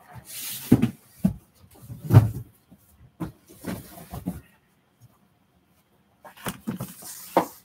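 Cardboard boxes being pulled off shelves and handled: a series of knocks, scrapes and rustles in short bursts, with the loudest thump about two seconds in.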